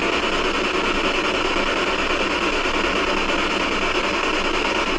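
Steady, even static hiss, unbroken and without any voice in it.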